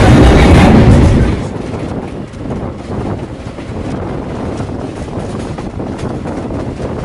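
A passenger train running at speed, heard at an open window, loud with wheel and wind noise; about a second in it cuts to a quieter, steady rush with wind on the microphone as the train rolls into the station.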